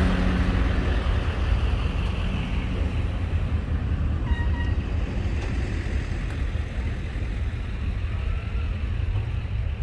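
Car engines running with a steady low rumble. A nearby engine's hum fades out about a second in, and a car horn gives one short toot about four seconds in.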